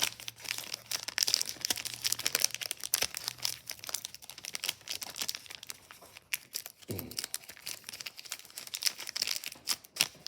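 Plastic wrapper of a Topps baseball card rack pack crinkling and crackling as it is handled and opened.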